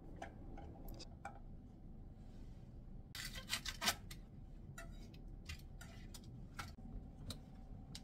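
Chef's knife chopping green onions on a wooden cutting board: sharp knocks, with a quick loud run of chops about three seconds in, then single chops spaced out.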